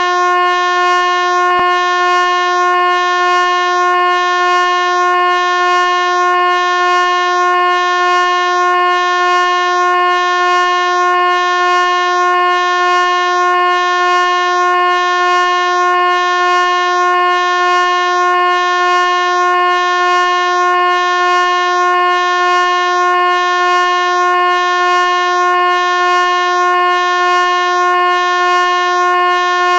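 Air horn held on one steady, unbroken note, loud and shrill with many overtones.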